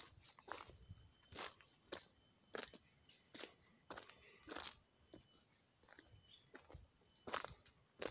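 Footsteps on a gravelly dirt track at a walking pace, about one to two steps a second, over a steady high-pitched drone of insects.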